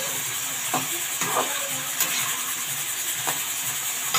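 Potatoes, peas and cauliflower frying in oil in a metal kadhai with a steady sizzle. A metal spatula stirs them, scraping and knocking against the pan several times.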